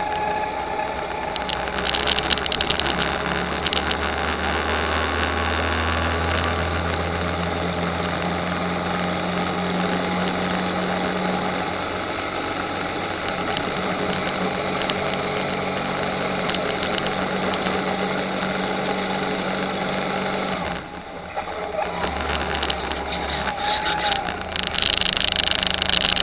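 Go-kart engine running steadily, heard from a camera mounted on the kart, with road and wind noise. The engine note drops briefly about three-quarters of the way through, then picks back up, and a louder hiss comes in near the end.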